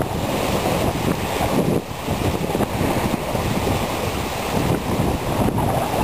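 Strong wind buffeting the microphone in gusts, over choppy river water lapping and splashing at the shore.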